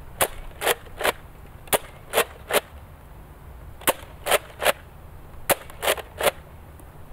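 Nerf Speedload 6 spring-powered dart blaster being worked and fired over and over. Sharp plastic clacks come in quick sets of three, four sets in all, as the top slide is pumped and each dart is shot.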